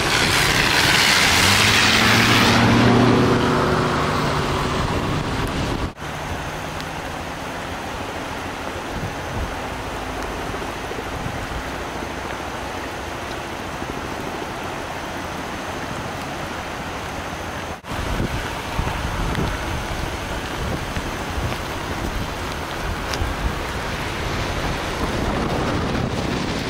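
A pickup truck passing on the wet highway, its tyres hissing through the water, swelling and fading over the first few seconds. After that comes a steady hiss of rain and wind, broken twice by abrupt cuts.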